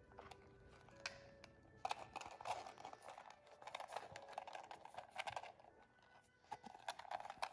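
Small Damier Ebene canvas zip pouch being unzipped and pulled open by hand: faint rustling and crinkling handling noise, heaviest in the middle and again near the end.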